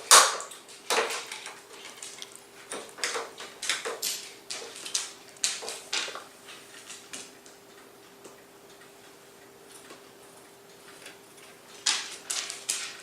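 Scissors snipping an old plastic credit card into a hinge shim: a run of sharp, irregular clicks, pausing for a few seconds and starting again near the end.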